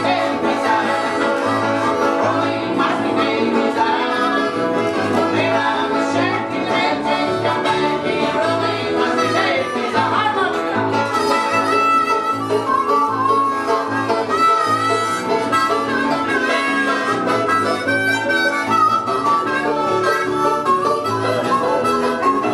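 Bluegrass band playing live: a harmonica carries the lead with bent notes, over banjo picking and strummed acoustic guitars keeping a steady rhythm.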